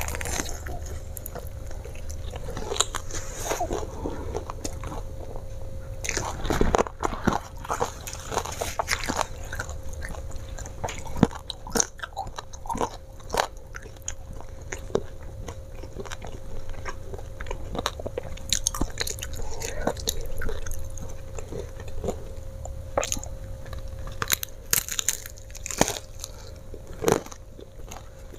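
Biting and chewing crispy fried chicken: irregular crunches and crackles of the crisp coating, with chewing between bites.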